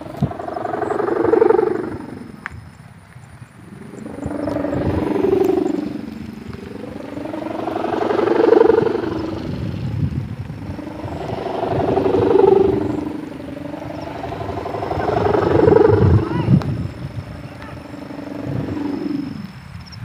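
Sendaren (kite hummer) with a 7-metre bow and plastic-film (mika) ribbon humming on a large pegon kite. The hum swells and fades five times, about every three and a half seconds, as the wind on the kite rises and falls.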